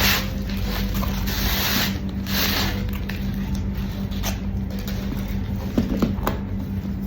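Rustling and handling noises from unboxing the bag, papery swishes at first, then a few sharp light clicks, over a steady low hum.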